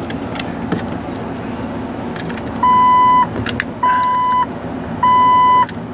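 Jeep Wrangler's dashboard warning chime beeping three times, even half-second beeps at one pitch about every 1.2 seconds, starting a little over halfway in. Before the chime there are light clicks from hands handling the wiring connector at the steering column, over a steady low hum.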